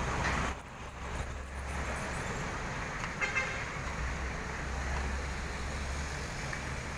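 A pickup drives past close by, its noise falling away about half a second in. Then an engine runs steadily with a low hum under street traffic noise.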